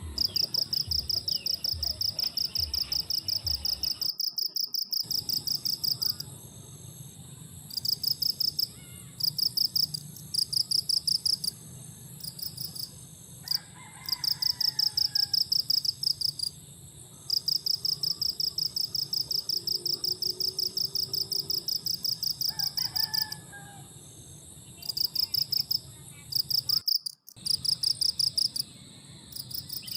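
Insects chirping in fast, high-pitched pulsed trains lasting several seconds with short pauses, over a low steady rumble and a few faint bird calls. The sound drops out completely twice for about a second.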